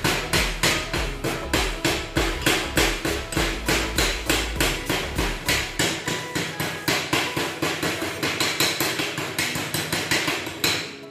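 Welder's chipping hammer rapidly striking a steel butt weld, about five sharp metallic strikes a second, chipping the slag off the stick-weld bead. The strikes stop near the end.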